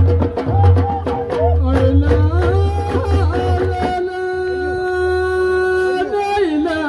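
Amazigh ahwach music: voices singing over a fast beat of hand drums. About four seconds in the drums stop and a voice holds one long note that dips at the end.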